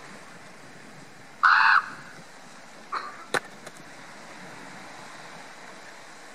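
Steady wind-and-surf noise, broken about a second and a half in by a loud, short high-pitched call or squeak. Around three seconds in comes a briefer, fainter one, followed by a sharp click.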